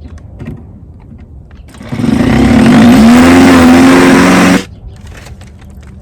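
Electric drill running for about two and a half seconds: the motor whine rises as it spins up, holds steady, then cuts off suddenly.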